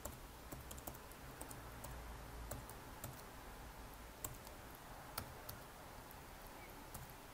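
Typing on a computer keyboard: faint, irregular keystroke clicks as a short word is entered.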